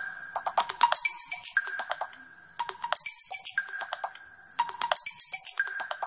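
Samsung Galaxy S3 Mini stock ringtone playing: a short phrase of clicky percussion and chiming notes that repeats about every two seconds.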